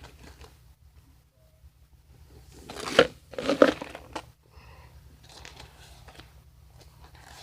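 Brief crunching, rustling handling noises, with two louder crunches about three and three and a half seconds in, otherwise quiet room tone.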